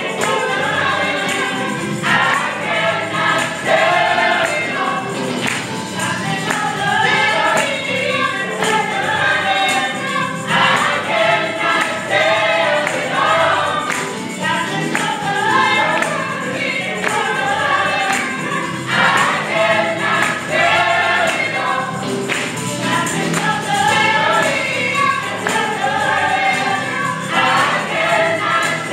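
Gospel praise team of several voices singing together in harmony, with a steady beat underneath.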